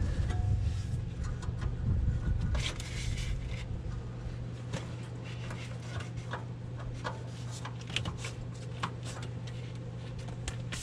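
Hand tools working on bolts in a utility vehicle's engine bay: scattered clicks, light knocks and a short scrape of metal on metal, over a steady low hum.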